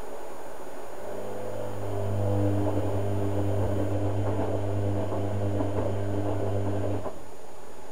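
Hotpoint Ultima WM72/76 washing machine's motor turning the drum for a wash tumble: a steady hum with laundry churning in the drum, starting about a second in and stopping near the end.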